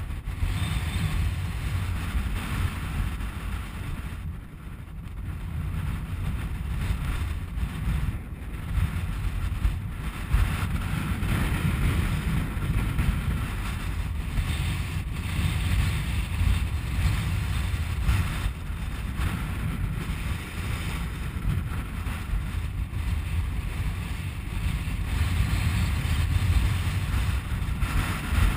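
Wind buffeting the camera microphone: a low, rumbling rush that rises and falls in gusts, with a dip in strength a few seconds in.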